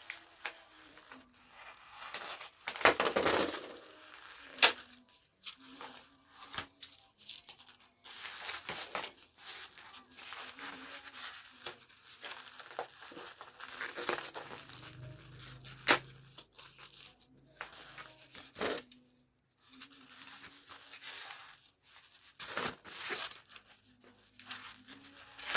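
Phone-case packaging being torn open and handled by hand: irregular ripping and crinkling, with a few sharper, louder rips.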